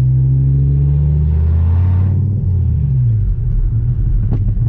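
Dodge Viper's V10 engine running as the car moves, its revs easing down between about one and a half and three seconds in. A sharp click near the end.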